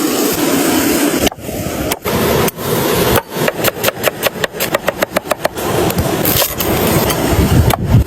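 Rapid, evenly spaced knocks, about five or six a second, in two runs over a steady loud hiss.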